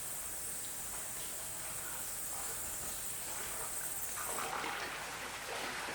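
Faint steady ambient noise with a high-pitched hiss that stops about four and a half seconds in.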